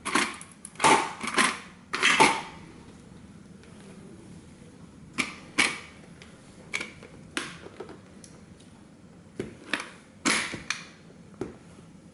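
Thin tin-plate body of a vintage toy car creaking and cracking as it buckles under a heavy boot sole, in clusters of sharp snaps: a loud run in the first two seconds, a few more around the middle and another run near the end.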